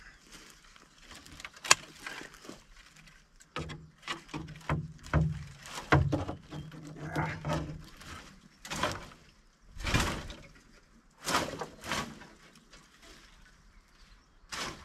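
Dry briars and dead undergrowth being dragged out with a fork: irregular rustling, crackling and snapping twigs, in separate pulls that grow louder and longer in the second half.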